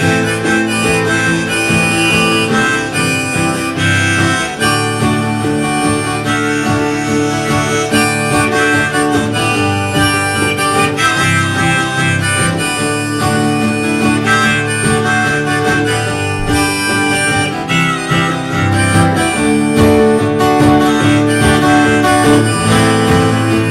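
Live band playing an instrumental break in a song, with no singing.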